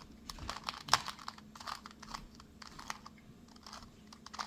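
2x2 Rubik's cube being turned by hand through an algorithm: quick, irregular plastic clicks and clacks of its layers turning, with one sharper clack about a second in.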